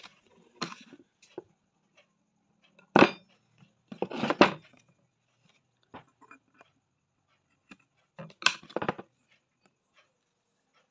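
Scattered knocks and clatter from handling the steel spear, its thread-wrapped handle and scissors on a tabletop, the loudest a sharp knock about three seconds in, with smaller clusters of clatter shortly after and again near the end, and faint ticks between.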